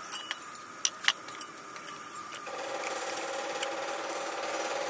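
Stainless steel tubes clicking and clinking lightly as they are handled and set down on a stone slab, then a steady mechanical hum starts about halfway through.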